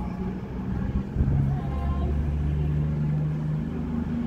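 Diesel engines of a CrossCountry passenger train running with a steady low drone.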